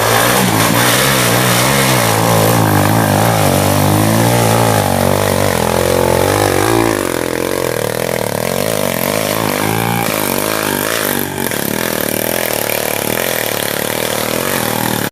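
Dirt bike engines revving hard, their pitch rising and falling repeatedly as the throttle is worked on a muddy climb. The sound changes abruptly about seven seconds in and again near eleven seconds.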